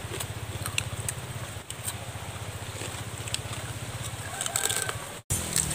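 A small motor drones steadily with a fast, even low pulse. Scattered light clicks and cracks of cooked crab shells being broken and chewed sit on top of it. The sound cuts off abruptly near the end and comes back with a slightly different hum.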